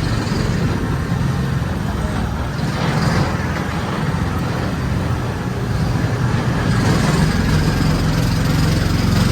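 ATV engine running steadily while the vehicle is driven along an off-road course, with a rough, noisy rumble throughout.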